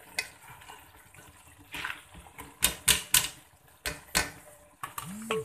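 Irregular clicks and knocks of raw cauliflower florets being tipped into a cooking pot and landing against each other and the pot.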